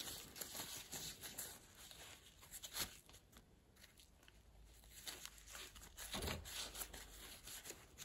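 Paper tissue rustling and scraping as a small screwdriver twists it inside the bearing housing of a fan motor, wiping dirt out of the housing. Faint, scattered rustles and light clicks, with a near-quiet stretch about halfway through.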